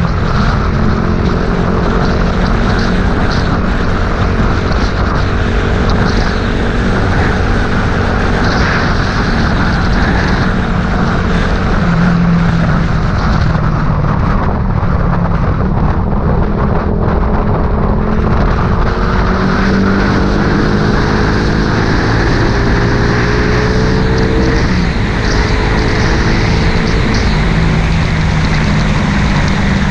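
A vehicle engine running under way, its pitch drifting slowly up and down with speed, over a steady rush of wind and road noise.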